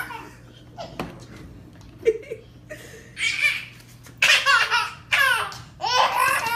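Baby laughing in several high-pitched bursts, starting about three seconds in and coming more strongly toward the end. Before that come two sharp knocks, about a second apart.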